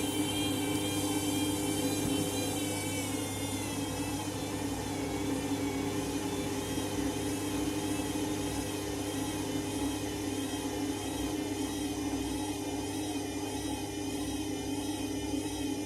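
Candy washing machine's drum spinning at speed in the spin cycle: a steady motor whir with a high whine that wavers slightly up and down. It is a clean spin with no suds.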